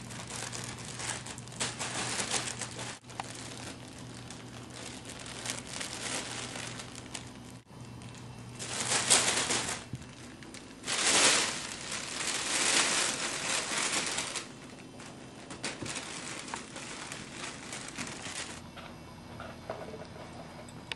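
Kitten scrambling in a crinkly fabric pop-up cat tunnel: repeated bursts of crinkling and rustling, loudest about nine seconds in and again from about eleven to fourteen seconds. The crinkling stops a few seconds before the end.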